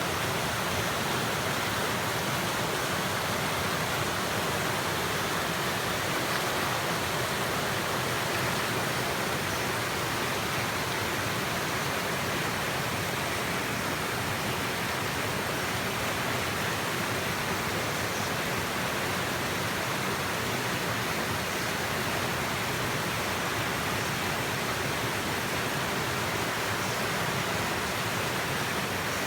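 Waterfall: falling water rushing in a steady, even roar with no breaks.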